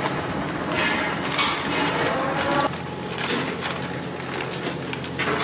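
Hands mixing marinated fish pieces in a large metal pot while cornflour is shaken from a plastic packet: irregular rustling and squishing.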